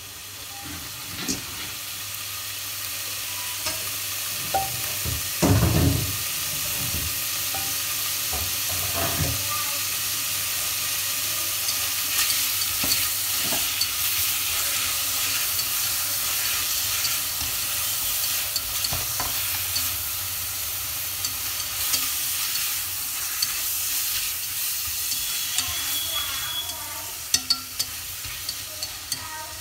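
Beef slices and prawns sizzling in oil in a stainless steel pot while being stir-fried with wooden chopsticks, which click against the metal. The sizzle builds over the first few seconds, and there is a heavy knock about five seconds in.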